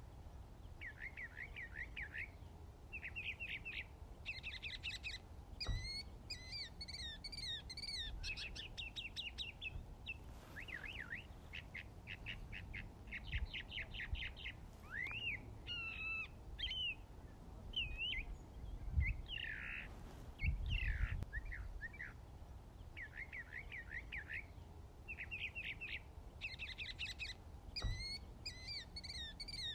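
Small songbirds singing: short trills of rapid chirps repeated phrase after phrase, with a few higher sweeping calls, over a steady low rumble.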